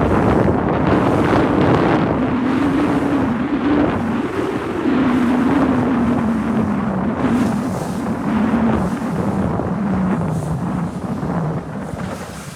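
Wind buffeting the microphone over open water, with a steady motor drone underneath that slowly falls in pitch.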